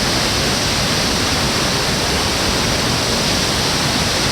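Waterfall rushing: a steady, loud noise of falling water that does not change.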